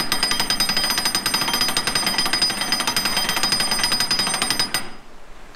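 Canal lock paddle gear being wound with a windlass: a rapid run of metallic clicks as the safety pawl drops over the ratchet teeth, cutting off abruptly near the end.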